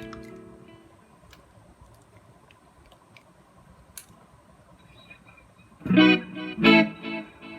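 Electric guitar played through a Boss CH-1 Super Chorus pedal, picked up by a phone's built-in microphone. A chord fades out over the first second, a quiet stretch with a few faint clicks follows, then two chords are struck about six and seven seconds in.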